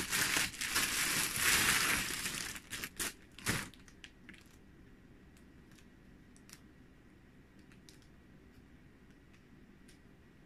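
Packaging crinkling and crackling as a parcel is handled, loud for about the first three seconds, then a few faint clicks over a quiet room.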